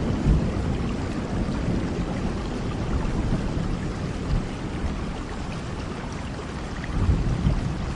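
Steady rain falling, with a low rumble of distant thunder underneath that eases early on and swells again about seven seconds in.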